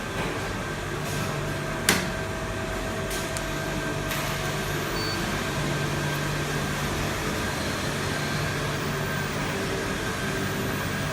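IPX4 rain test chamber running: a steady machine hum under an even hiss of water spraying from the swing pipe. A sharp click about two seconds in.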